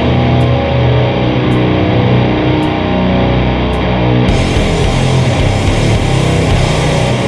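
Heavily distorted electric guitar playing a slow, low-tuned doom-metal riff through a blend of octave fuzz and chainsaw-style distortion. A faint tick sounds about once a second, and about four seconds in the top end fills out with a brighter hiss.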